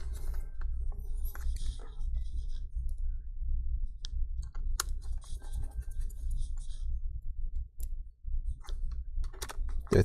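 Small precision screwdriver driving in the tiny screws that hold a MacBook Air's CPU fan: scattered light clicks and short scratchy scrapes of metal on metal, over a steady low rumble.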